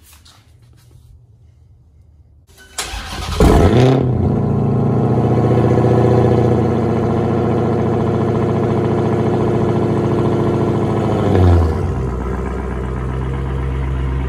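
2017 Dodge Charger SRT Hellcat's supercharged 6.2-litre HEMI V8 cranked by the starter, catching with a loud flare about three seconds in, then running at a high idle just after start-up. A short rise about eleven seconds in, then it settles to a lower, steady idle.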